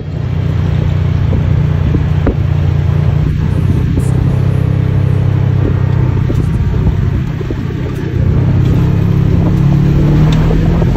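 ATV engine running steadily under way on a dirt trail. It eases off about seven seconds in and picks up again about a second later.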